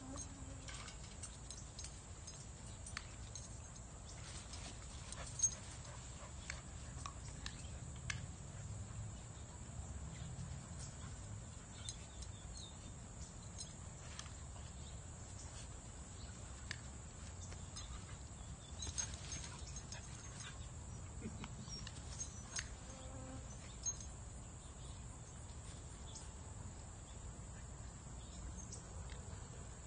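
Puppies scuffling and play-wrestling on grass, with scattered soft knocks and one sharper knock about five seconds in, over a steady high insect trill.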